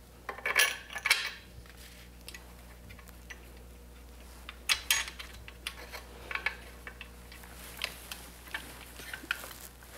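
Scattered light clicks and taps of small screws and hard plastic being handled: screws finger-tightened into the molded plastic fittings of a sailboat dolly, with a short cluster of clicks about a second in. Near the end a Phillips screwdriver is put to the screws.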